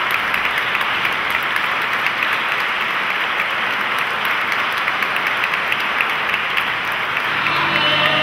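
Audience applauding in a hall: a steady, dense clapping that follows directly on the end of a chamber-music piece.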